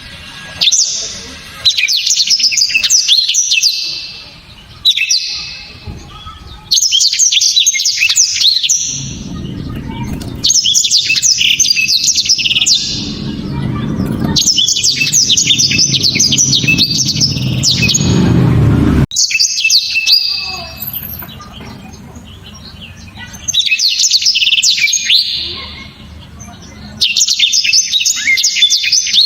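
Black-throated canary (blackthroat) singing a loud, rapid, high-pitched song in phrases of a few seconds each, with short pauses between them. A low rumble runs under the song through the middle stretch.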